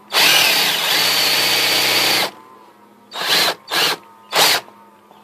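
Electric drill boring into a plywood workbench top: it runs steadily for about two seconds and stops, then comes three short blips of the trigger. The bit is cutting poorly; the owner thinks he might need a better bit.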